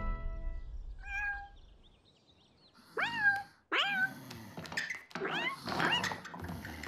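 Kitten meowing: a short faint mew about a second in, then two clear meows that rise and fall in pitch about three and four seconds in, followed by several more mews.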